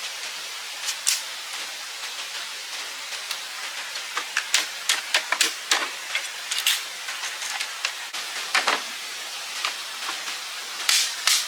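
Steady rush of running water with a series of sharp cracks or knocks, coming in clusters midway through and again near the end.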